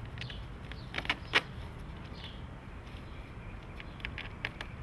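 Foam wing halves of a Penguin RC plane being pushed together onto the spar: a few sharp clicks and knocks, the loudest about a second and a half in, with more light clicks near the end.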